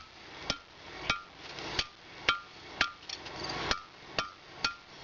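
Hand hammer striking a heated metal rod on an anvil, about two blows a second, each followed by a short metallic ring: the rod is being straightened.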